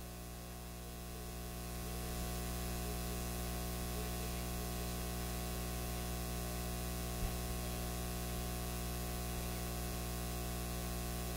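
Steady electrical hiss with a low mains hum from the microphone and recording chain, growing a little louder over the first two seconds; one faint click about seven seconds in.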